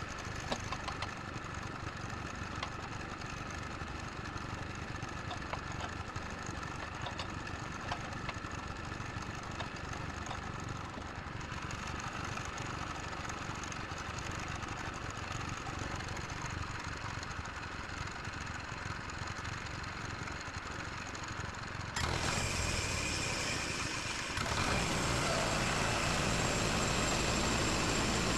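Woodland Mills HM122 sawmill's gasoline engine running steadily at low speed. About three-quarters of the way through it suddenly gets louder with a hiss on top, then steps up again a couple of seconds later, as the mill is throttled up.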